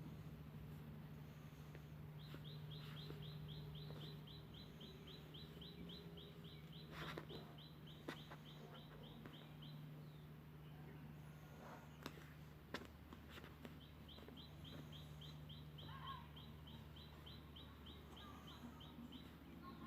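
Faint, high chirping: short chirps repeated several times a second in two long runs of several seconds each, with a short gap between them, over a steady low hum.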